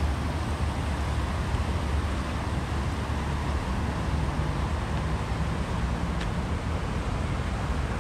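Steady outdoor street ambience: an even wash of noise with a deep low rumble, and a faint short tick about six seconds in.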